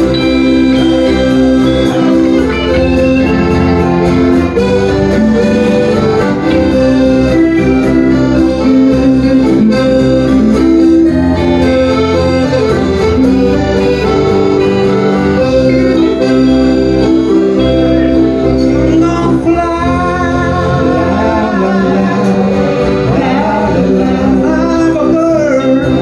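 Live folk-rock band music: a piano accordion holds and moves through chords over a strummed acoustic guitar and an electric guitar.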